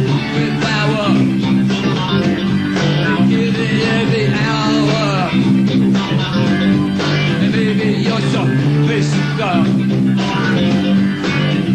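Live rock band playing, led by electric guitar, with sustained chords and bending lead lines.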